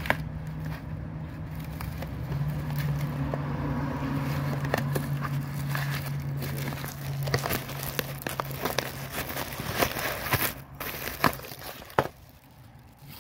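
Plastic-wrapped packs of crackling-ball fireworks and their cardboard box being handled, with crinkling wrap, rustles and scattered small clicks. A steady low hum sits underneath and fades out about two-thirds of the way through.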